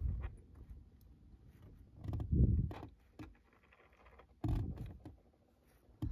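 Small metal screws being handled and counted, clicking and sliding on a surface, with a few louder dull bumps of handling.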